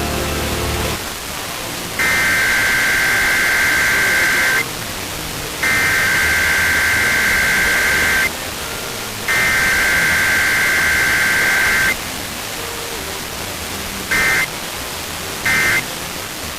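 Emergency Alert System SAME digital header over a radio with steady hiss. There are three long, harsh buzzing data bursts about a second apart. After a pause, two short end-of-message bursts come near the end. No attention tone or spoken message lies between them, the pattern of a required weekly test.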